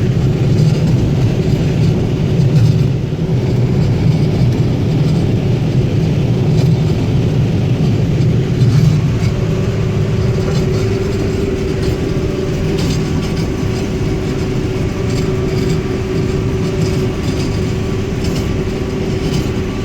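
New Holland CS6050 combine harvester running steadily while harvesting corn: a continuous machine drone with a steady hum, a fainter higher whine joining about halfway through.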